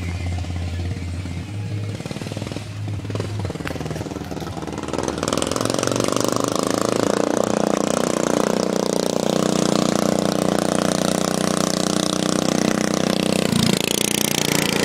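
Small engine of a racing lawnmower, running low at first and then picking up to a louder, steady, rapid run about five seconds in, with a brief dip near the end.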